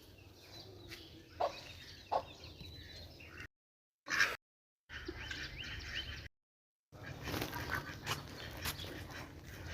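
Domestic ducks quacking: a few short loud calls over a steady outdoor background, with the sound cutting out to dead silence for about half a second three times.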